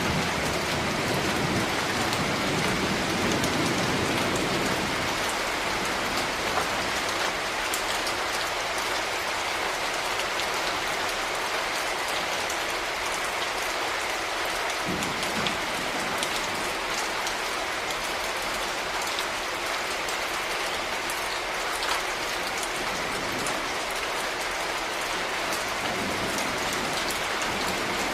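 Steady rain falling, a constant hiss with many small drops ticking on a hard surface.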